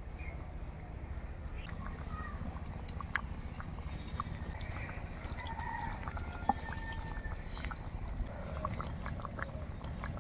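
Fish curry simmering in a steel karai, bubbling with scattered small pops over a steady low rumble.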